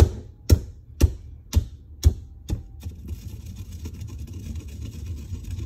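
Stone pestle pounding candy in a marbled stone mortar: six sharp knocks about half a second apart, then a steady scraping rub as the candy is ground into powder.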